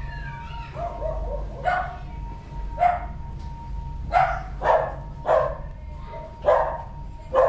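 A dog barking repeatedly, about one sharp bark a second, over the steady ringing tone of a brass singing bowl.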